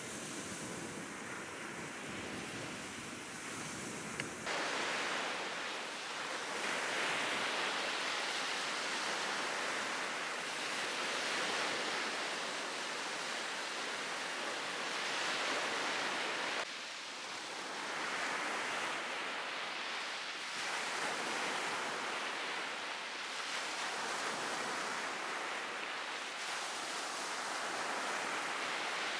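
Sea surf breaking and washing up a sandy beach, swelling and ebbing with each wave. The sound jumps abruptly louder about four seconds in and drops briefly about seventeen seconds in.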